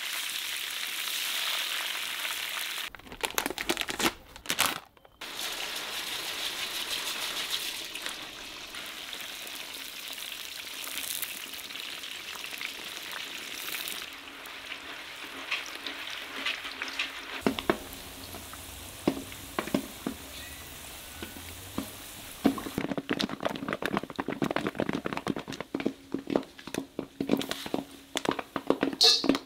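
Hot oil sizzling steadily in a cast-iron cauldron as watermelon pieces deep-fry. Later the sizzle thins to scattered clicks, and in the last few seconds it becomes a dense crackle of quick sharp pops as popcorn pops in the pot.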